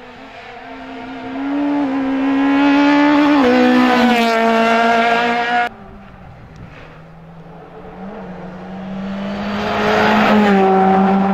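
A rally car's engine runs hard as the car approaches. Its pitch climbs and then steps down at a gear change, and it cuts off abruptly about halfway through. A Skoda Fabia Rally2's 1.6-litre turbocharged four-cylinder is then heard approaching at full throttle, growing louder towards the end.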